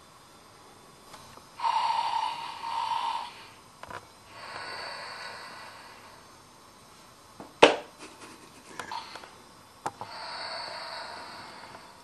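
Snoring plush teddy bear toy: a snore on the in-breath, then a long hissing breath out, and the cycle begins again. A single sharp knock about seven and a half seconds in.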